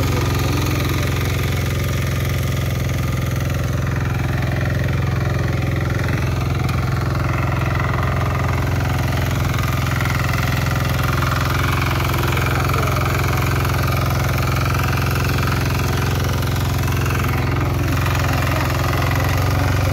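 KisanKraft power weeder's engine running at a steady, unchanging pitch while the machine tills soil.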